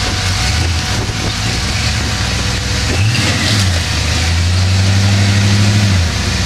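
Off-road 4x4's engine working as the truck crawls over a rock ledge. It revs up about halfway through, holds a higher steady pitch for a few seconds, then drops back near the end.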